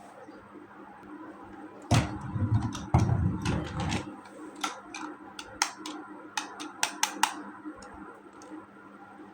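Plastic toys and packaging handled close to the microphone: a rustling, rumbling stretch of about two seconds, then a string of sharp plastic clicks and taps.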